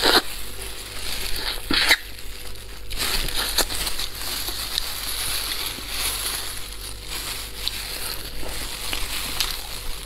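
Close-miked eating of spicy braised rabbit heads: a couple of loud wet sucking bites near the start, then wet crackling and tearing with small clicks as the heads are pulled apart by hands in crinkling plastic gloves.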